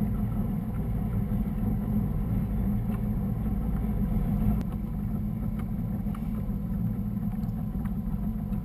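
Motorboat's engine running steadily at low speed, a constant low rumble.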